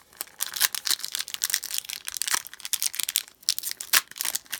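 Plastic wrapper of a trading card pack crinkling and tearing as it is handled and ripped open, a dense run of quick crackles.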